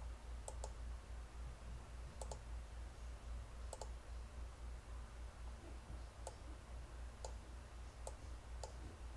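Trackball buttons clicking: scattered single clicks and a few quick double clicks, over a steady low electrical hum.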